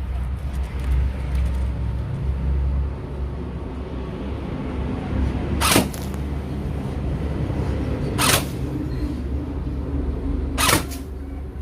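Airsoft AK-47 electric gun (AEG) firing three single shots about two and a half seconds apart, each a short sharp snap of the gearbox cycling, over a steady low rumble.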